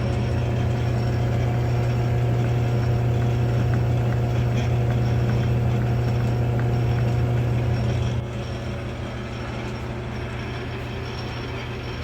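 Metal lathe running steadily with a chainsaw cylinder mounted in it, giving a loud, even motor hum. About eight seconds in, the hum drops sharply to a quieter steady drone.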